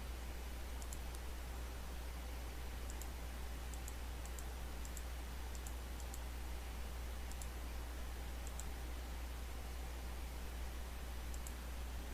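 Faint computer mouse clicks, scattered about once a second or so, over a steady low hum and microphone hiss.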